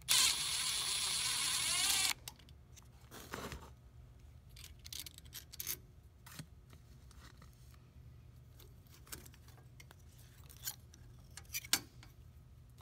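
Milwaukee cordless drill running for about two seconds as it backs out a screw, its pitch rising just before it stops. After that come scattered light clicks and knocks of parts being handled.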